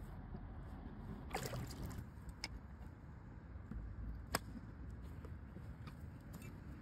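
Water splashing briefly about a second in as a freshwater pearl mussel is lifted from the pond, then a few sharp clicks of a cleaver blade against the mussel's shell as it is pried open, over a low steady rumble.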